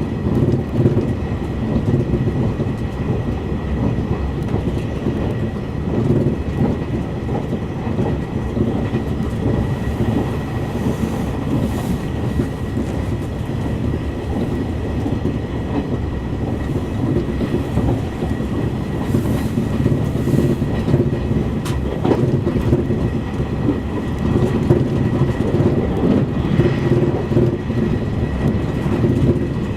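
JR East E351 series limited express electric train running at speed, heard from inside the passenger car: a steady rumble of wheels on rail with a faint steady high tone, and a single sharp click about two-thirds of the way through.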